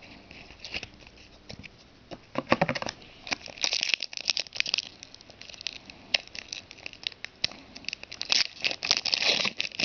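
Trading cards and their foil pack wrapper being handled: crinkling and rustling with sharp flicks and clicks, in bursts.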